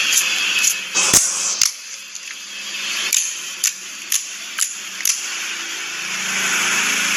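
Slime being squeezed and kneaded, crackling, with sharp pops of trapped air. Two loud pops come about a second in, then a run of pops about two a second. A steady low hum comes in near the end.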